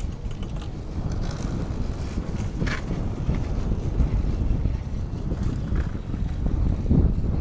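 Wind buffeting the microphone with a steady low rumble, and one short sharp click about two and a half seconds in.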